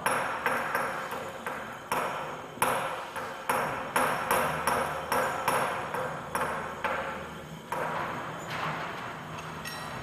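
Traditional valve spring compressor being worked by hand: a string of sharp metal-on-metal knocks, each ringing briefly, about one to two a second, growing sparser and softer near the end.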